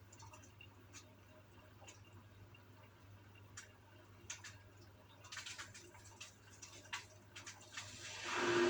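Gorenje washing machine at work: a steady low hum with scattered ticks, water splashing and dripping, and a louder rush of water starting near the end.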